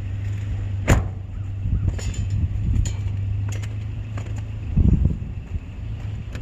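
Vehicle engine idling steadily, with a sharp knock about a second in, a few lighter clicks, and a cluster of heavier thumps near five seconds.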